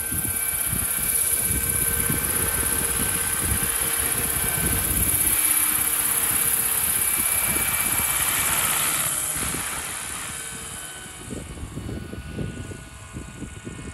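Radio-controlled scale Bell 412 helicopter (Roban 800-size) in flight, its motor and four-blade rotor giving a steady high whine. Loud as it passes close, then fading from about ten seconds in as it climbs away.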